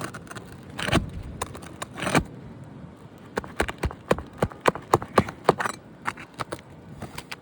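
Brittle asphalt roof shingles being prised loose and their seals broken by hand and tool: a run of sharp, irregular clicks, cracks and scrapes, coming quickest in the middle.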